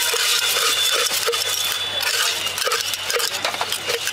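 Metal spoon stirring puffed rice in a steel mug, clinking against the mug's inside about two to three times a second while mixing jhal muri.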